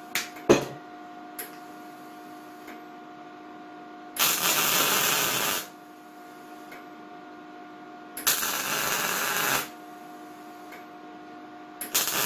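Electric arc welding on steel: three short welds of about a second and a half each, crackling and hissing, over a steady electrical hum. A sharp knock about half a second in.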